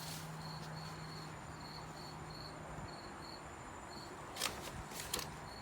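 Insect chirping in short high pulses, about two a second, over a steady low hum. Two brief clicks come near the end.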